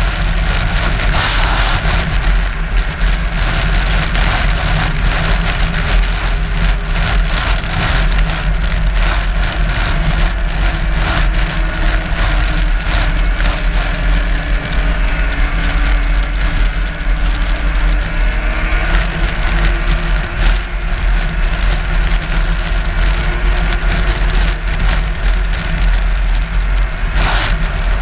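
A vehicle engine running at idle, steady and loud with a rough low rumble, and a faint pitch that rises and falls about halfway through.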